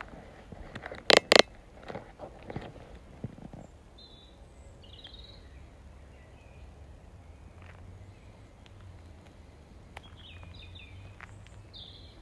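Two sharp knocks in quick succession about a second in, the loudest thing heard, with a few smaller clicks after them. Later come short bird chirps, once around the middle and again near the end, over a quiet outdoor background.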